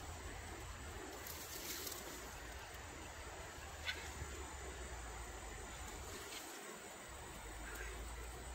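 Faint outdoor ambience: a steady hiss with a low hum beneath it, and a short high chirp about four seconds in.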